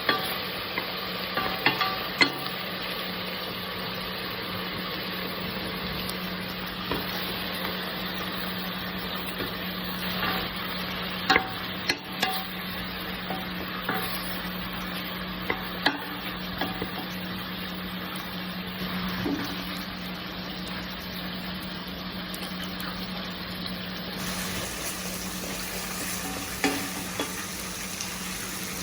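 Food sizzling in a frying pan, with a utensil knocking and scraping against the pan now and then, over a steady low hum.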